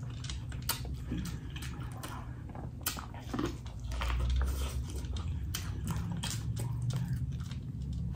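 Close-up eating sounds: biting into and chewing corn on the cob, with irregular sharp wet clicks from the mouth.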